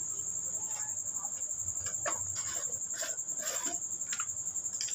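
A steady high-pitched trill runs throughout, with a few faint clicks and light taps scattered through it.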